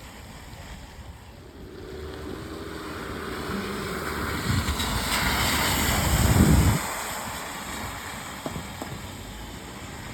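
A car passing on a rain-soaked road, its tyres hissing through standing water: the hiss swells over several seconds, is loudest about six and a half seconds in, then drops away abruptly. Steady rain hiss underneath.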